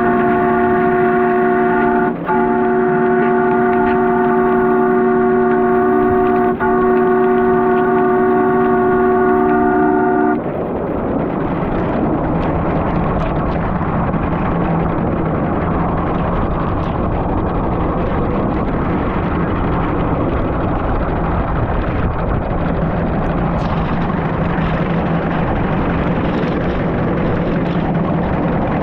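A scale live-steam locomotive's multi-note chime whistle, blown long with two brief breaks. It stops about ten seconds in and gives way to a steady rushing noise.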